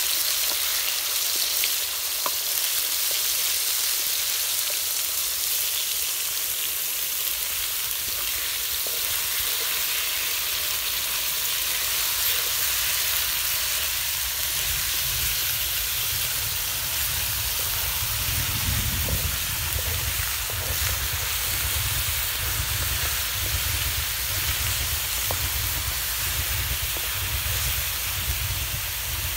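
Chicken pieces and shallots sizzling steadily in hot oil in a large aluminium wok, stirred with a wooden stick. A low rumble joins about halfway through.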